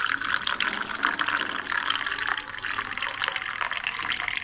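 Liquid pouring in a steady stream into a cup, with continuous splashing and bubbling.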